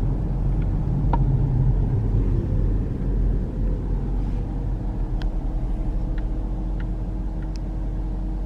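Road noise inside a moving car: a steady low rumble of engine and tyres, with a few faint clicks and a low steady drone coming in about halfway through.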